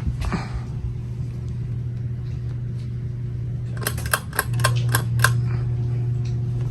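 Ceiling fan running with a steady low hum. About four seconds in comes a quick run of clicks, and the hum grows louder.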